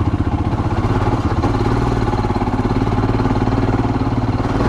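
Royal Enfield Himalayan's 411 cc single-cylinder engine running steadily under way on a trail, with a even, unchanging beat.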